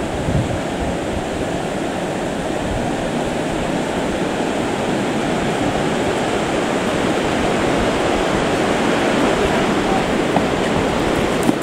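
Mountain river rushing steadily through the rocky gorge below a wooden bridge, a continuous even roar of moving water.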